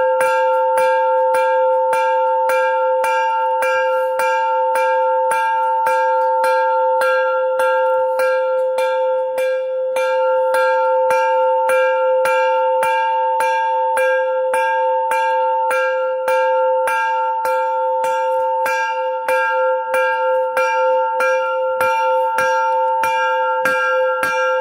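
Temple bell struck rapidly and repeatedly, about two to three strokes a second, so that it rings on without a break at one steady pitch with bright overtones.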